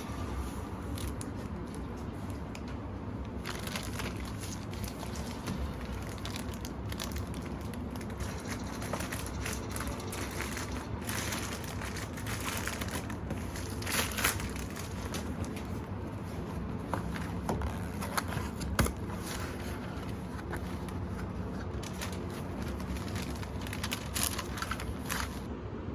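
Scattered light crinkling and small clicks of things being handled, over a steady low hum, with a few louder clicks in the middle.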